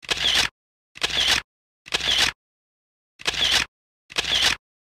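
Camera shutter sound effect, five times about a second apart, with dead silence between the clicks.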